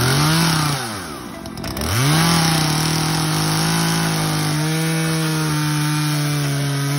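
A small engine revs up and drops back, then revs up again about two seconds in and holds at a high, nearly steady pitch.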